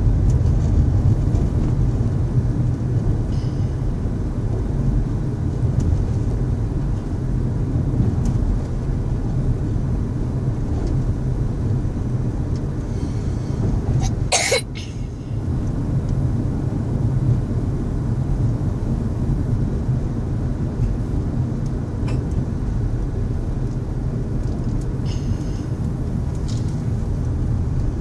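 A young boy coughing now and then, with one sharp cough about halfway through, over the steady rumble of road noise inside a moving car.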